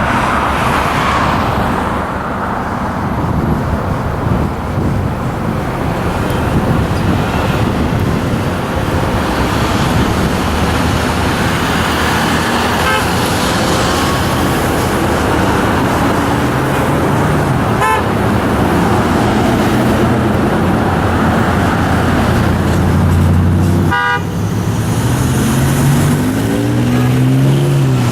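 Steady roar of heavy freeway traffic passing, with several vehicle horns honking in the second half. The honks are drivers answering a 'Honk to Impeach' protest sign.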